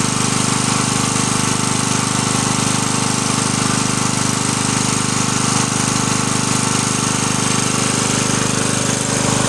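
Small engine-driven generator running steadily at constant speed, with a fast, even pulse.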